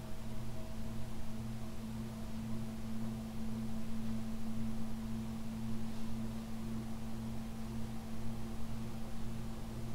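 Golden Fan model 168 industrial ceiling fan running, its motor giving a steady electrical hum with a light hiss of moving air.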